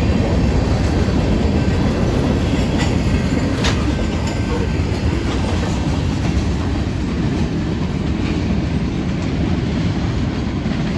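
Freight cars of a long mixed freight train rolling past close by: a steady heavy rumble of steel wheels on rail, with a couple of sharp clanks about three seconds in.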